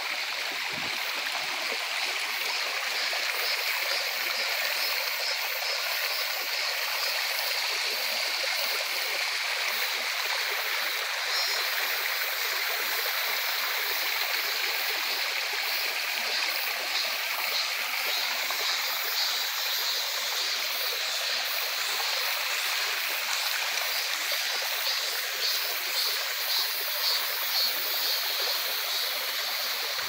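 Mountain stream water rushing steadily over rocks, with cicadas singing over it; a pulsing cicada call grows stronger from about halfway through and is strongest near the end.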